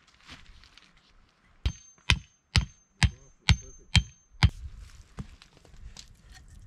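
Hammer striking metal seven times in quick succession, about two blows a second, with a high ringing tone carrying between the blows.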